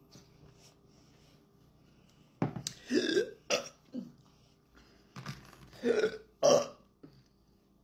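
Loud burping, in two bouts: the first a couple of seconds in, the second about three seconds later.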